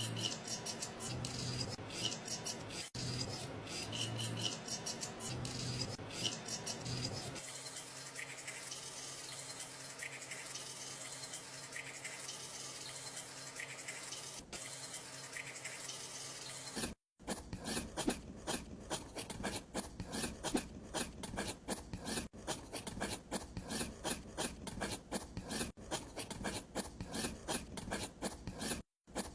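Small-scale handwork on miniature building materials: scraping and rubbing, like a tool working over brick or mortar surfaces. After a brief break about two-thirds of the way in, it turns into a quicker run of short scrapes and taps.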